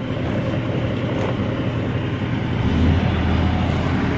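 Semi-truck cab noise while driving: a steady low engine drone and road rumble, swelling louder for a moment about two-thirds of the way through, then breaking off abruptly at the end.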